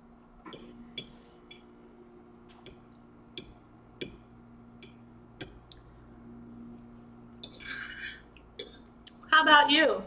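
Metal fork tapping and clinking against a ceramic dinner plate in about a dozen light, scattered clicks, with a short scrape near the end. A brief, loud burst of voice comes in the last second.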